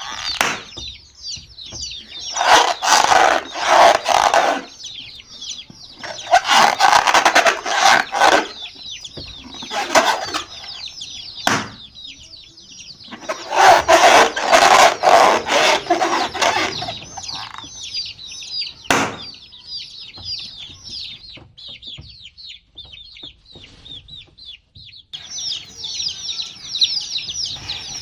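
A group of baby chicks peeping continuously, a dense stream of high, quickly falling chirps. Louder, noisier bursts break in three times, for two to three seconds each, along with a few sharp clicks.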